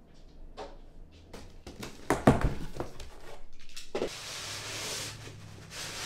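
A few knocks and thumps, the loudest about two seconds in. From about four seconds in comes the rustle and scrape of cardboard as a shipping box's flaps are opened and an inner box is slid out.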